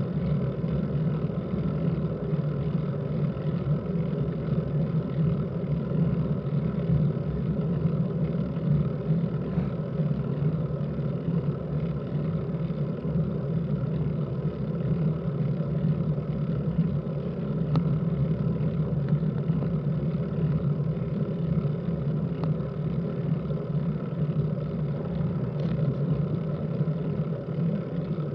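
Steady muffled rumble and low hum of a road bike climbing slowly on wet asphalt, as picked up by a camera mounted on the bike, with a few faint ticks.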